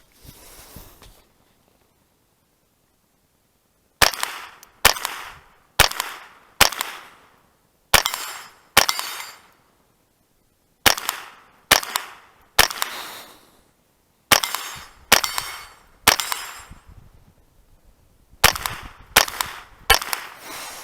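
Ruger 10/22 Takedown .22 LR semi-automatic rifle firing about sixteen shots, in strings of two to four about a second apart, starting about four seconds in. Each crack trails off in a ringing decay as steel targets are hit.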